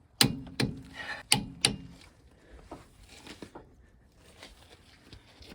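Four sharp knocks, two close together and then two more, in the first couple of seconds, followed by faint rustling and handling noise.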